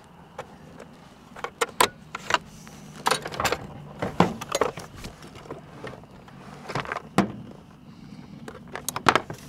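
Scattered clicks, knocks and rattles as a MotorGuide Xi3 trolling motor is handled and lifted off its quick-release bow mount.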